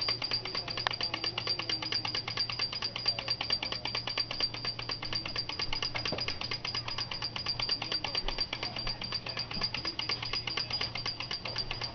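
Vintage Japanese wind-up Santa Claus toy running: its clockwork mechanism clatters as a small bell is struck rapidly and evenly, several times a second, with a steady high ring.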